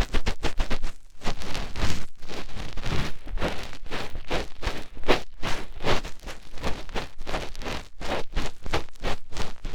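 Fingertip scratching and rubbing inside an ear in close-up, quick uneven rustling strokes several a second with a short pause about a second in.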